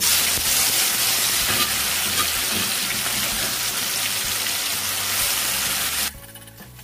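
Freshly pounded chili paste sizzling hard in hot oil in an aluminium wok, a loud even hiss that starts the moment the paste hits the oil. It cuts off suddenly about six seconds in.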